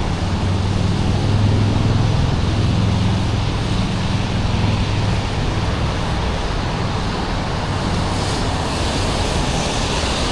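Road traffic noise: a steady rush with a motor vehicle's low engine hum that fades about halfway through.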